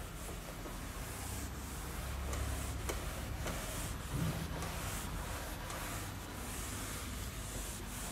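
Folded cloth duster wiping marker off a whiteboard in repeated swishing strokes.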